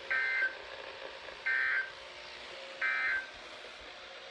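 NOAA Weather Radio SAME end-of-message data bursts, marking the close of the Required Weekly Test broadcast. They come as three short, high digital warbles about a second and a half apart, over a faint hiss.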